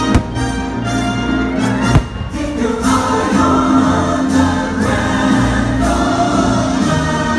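Fireworks-show soundtrack music with a choir singing held notes, and one sharp bang about two seconds in.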